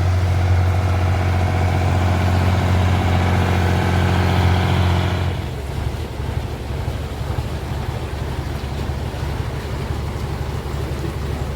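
Boat engine running steadily with a deep, even hum; about five seconds in the note drops abruptly to a quieter, rougher rumble.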